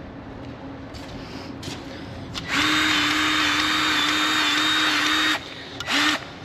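Milwaukee cordless grease gun motor whining steadily for about three seconds, then a short burst near the end, as it pumps grease into the bulldozer's track adjuster cylinder to tension the track.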